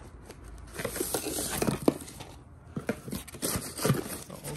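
Cardboard packaging rustling, scraping and knocking as a tightly jammed boxed diecast car is worked out of a shipping box, with many short irregular clicks and crinkles.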